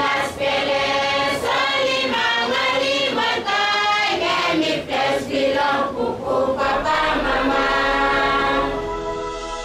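A group of voices singing together in chorus. About seven seconds in, the singing gives way to steady held musical notes that slowly fade.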